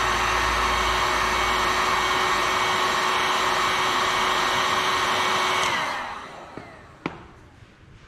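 Ryobi heat gun blowing steadily, with a faint whine in its airflow noise. It is switched off about six seconds in and winds down, and a single sharp click follows about a second later.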